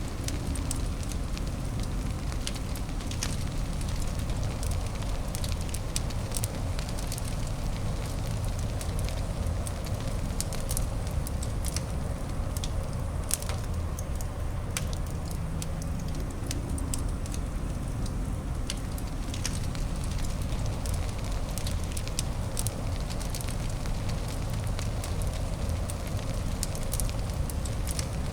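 Wood fire crackling in a fireplace: many scattered sharp pops and clicks over a steady low rushing noise bed.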